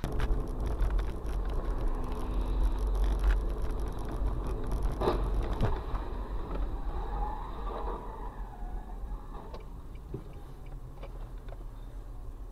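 Car driving, heard from inside the cabin: a steady low rumble of engine and tyres on a wet road, with a few sharp knocks, the clearest about five seconds in.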